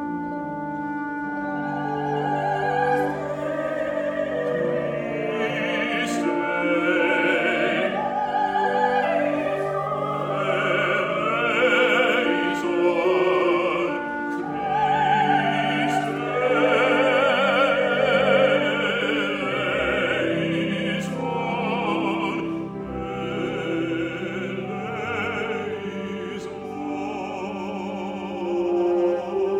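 A male solo voice singing in classical style with wide vibrato, over sustained chords from instrumental accompaniment.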